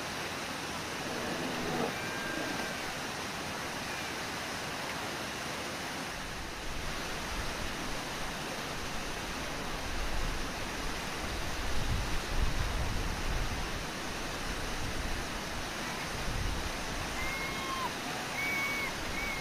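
Waterfall and river rapids rushing steadily on the Brooks River. A deeper low rumble joins about a third of the way in, and a few faint, short high calls sound near the end.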